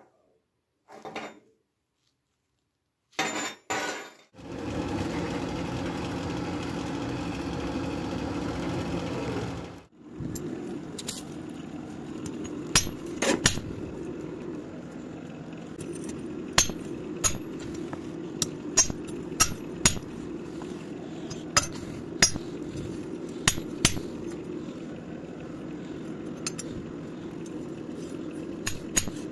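Hammer blows forging red-hot spring steel on a steel plate: sharp metallic clinks, often in pairs, coming every second or two over a steady hum. Before the hammering, a louder steady noise runs for about five seconds and then stops abruptly.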